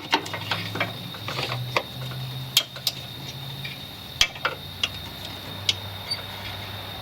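A 9005 headlight bulb and its plastic wiring connector being handled: a string of irregular sharp plastic clicks and light knocks over a steady low hum.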